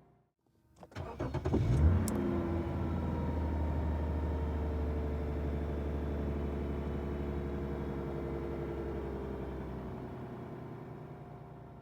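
A car's V6 engine started, heard from inside the cabin: the starter cranks briefly about a second in, and the engine catches with a quick flare of revs that drop back and settle into a steady idle. The idle fades away near the end.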